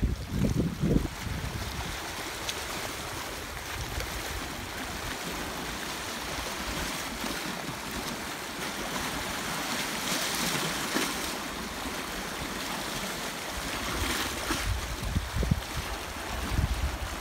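Small sea waves lapping and washing over rocks at the water's edge, a steady splashing hiss. Wind buffets the microphone briefly at the start and again near the end.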